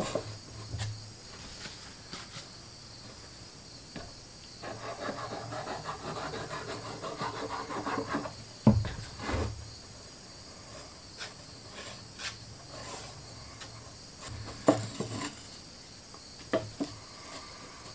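Wood glue squeezed from a plastic bottle along a plywood joint, a rough squelching for a few seconds, ending in one sharp knock. Later come a few light wooden taps as a stick knocks on the plywood box. A steady high chirring of crickets runs underneath.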